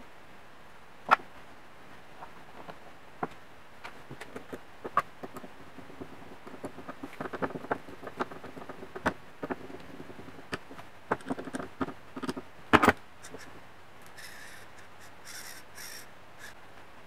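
A small screw is driven by hand with a screwdriver into a 3D-printed plastic servo housing, making a rough creaking with many small clicks through the middle. Sharp knocks of small parts and tools against the workbench come about a second in and near the end.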